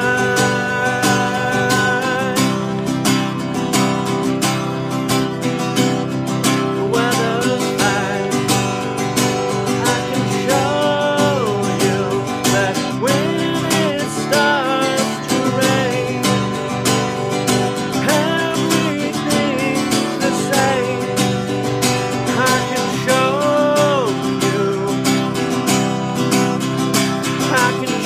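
A man singing with his own strummed acoustic guitar, in a steady strumming rhythm under held, gliding vocal lines.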